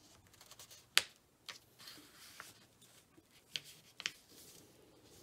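A sheet of paper being folded and pressed flat by hand on a tabletop: soft rustling with a few sharp crackles and taps, the loudest about a second in and two more near the end.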